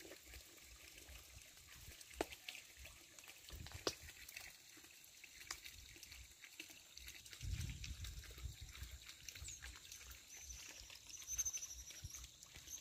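Faint outdoor ambience: a few soft clicks, a couple of low rumbling stretches, and a faint high wavering chirp near the end.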